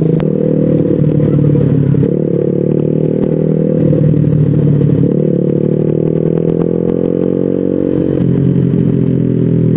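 Suzuki Smash R's single-cylinder four-stroke engine breathing through an SC Project aftermarket exhaust, pulling under hard acceleration. The engine note changes in steps about two, five and eight seconds in, as at gear changes.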